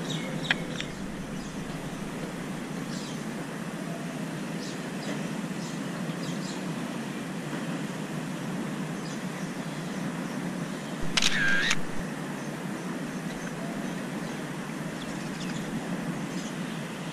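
Steady outdoor background hiss, with a short high-pitched call about eleven seconds in.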